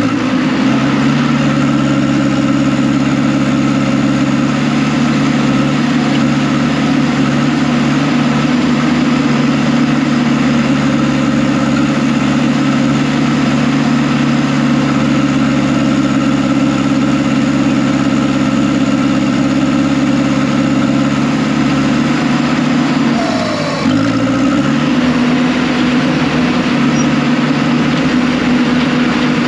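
Heavy earthmoving machine's diesel engine running steadily at working speed. Near the end its pitch dips briefly and then climbs back.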